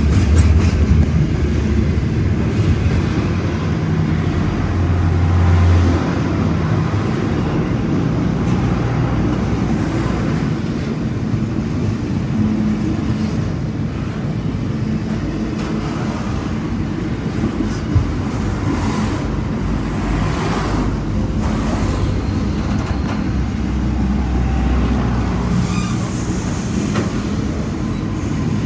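Freight train rolling past at line speed: a continuous rumble of steel wheels on rail with scattered clicks over the rail joints. The diesel locomotives' engine drone is heard in the first few seconds.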